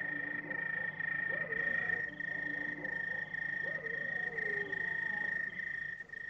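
Night ambience: frogs calling in wavering croaks over a steady, high, insect-like drone.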